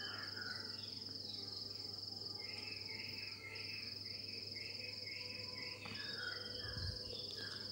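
A cricket trilling steadily in a high, finely pulsing tone that breaks off briefly a few times, over a low steady hum. Beneath it, the faint sizzle of masala-coated boiled eggs frying in shallow oil.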